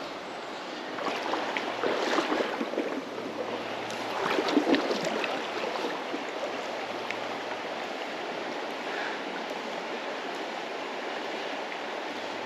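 Shallow creek water running steadily, with louder splashing and sloshing of water twice in the first five seconds or so.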